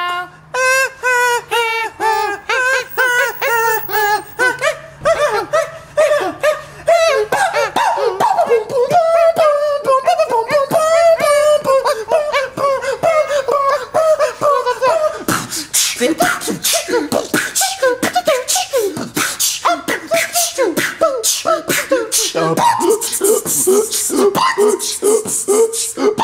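A man beatboxing. In the first half he sings a wavering, sliding vocal line broken by mouth clicks; just past halfway it turns into fast vocal percussion of clicks and hisses.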